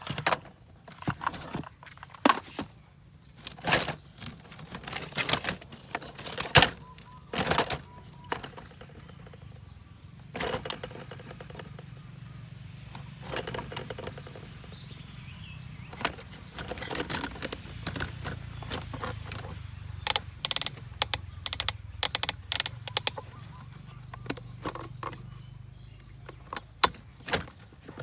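Small diecast model cars being handled, giving irregular sharp clicks and clacks of metal and plastic parts, with a quick flurry of them about three quarters of the way through. A low steady hum sits underneath through the middle stretch.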